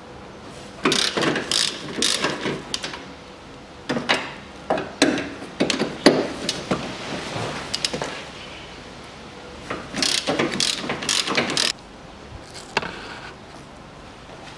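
Socket ratchet wrench clicking in quick runs as engine-mount bolts are undone with a 14 mm socket. There are three long runs of clicking, starting about a second in, about four seconds in and about ten seconds in, with one more short click near the end.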